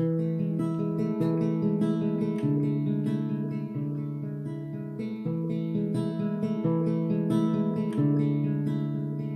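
Acoustic guitar strumming an instrumental intro, with steady chords and regular strokes.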